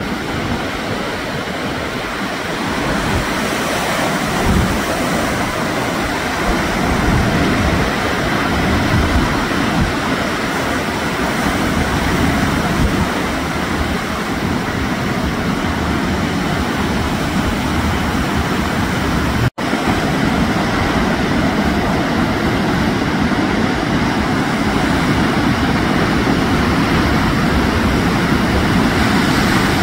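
Ocean surf breaking and washing in: a steady rushing noise with an uneven low rumble, cutting out for an instant about two-thirds of the way through.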